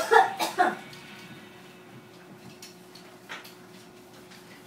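A short loud burst in the first second, then a quiet studio with a faint steady hum and scattered light clicks of headphones being handled and put on, one a little louder about three seconds in.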